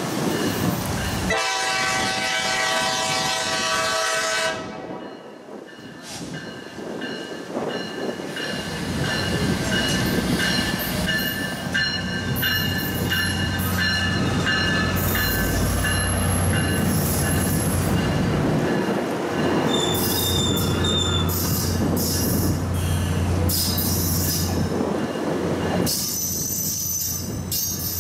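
Tri-Rail commuter train passing: a horn blast of about three seconds near the start, then the BL36PH diesel locomotive's engine rumbling by and the coaches rolling past with steady wheel squeal and clicks from the wheels.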